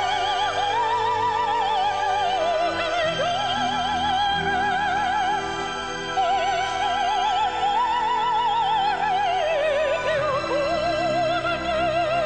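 Female soprano singing a slow ballad in Italian with wide operatic vibrato on long held notes, over orchestral accompaniment.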